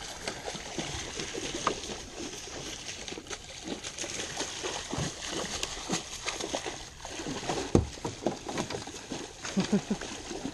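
Hooked California halibut thrashing at the surface beside a small boat as a landing net is worked under it: irregular splashing and sloshing of water, sharpest about three-quarters of the way through.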